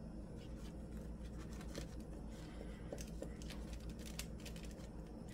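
Faint brushing and light scattered ticks of a small paintbrush working decoupage glue into a paper napkin on a small wooden birdhouse, over a steady low hum.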